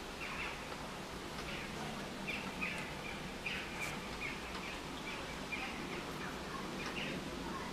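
Small birds chirping outside in short, falling chirps, about two a second and irregularly spaced, over a steady low background hum.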